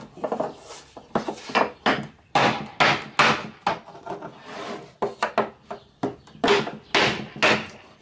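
Hammer striking a block of wood against a cabinet door frame to knock the stiles loose from the rails: a string of sharp wooden knocks, irregular, about one or two a second.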